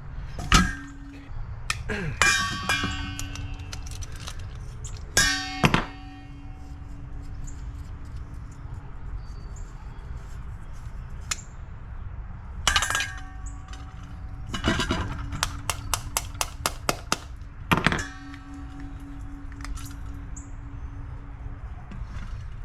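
Metal carburetor parts and hand tools clanking and clinking on a workbench as a lawn mower carburetor is taken apart. Several sharp knocks ring briefly, and a quick run of about ten ticks comes past the middle.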